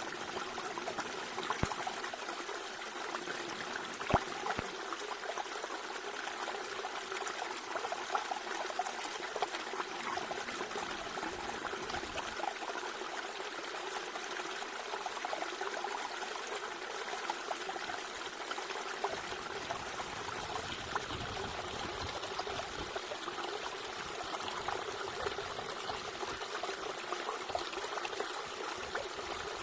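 Water trickling and flowing steadily, like a small stream running over stones, with a brief knock about four seconds in.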